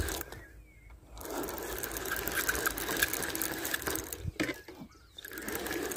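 Fishing reel being cranked, its gears whirring with a fine clicking in two spells: about three seconds, a pause, then about another second.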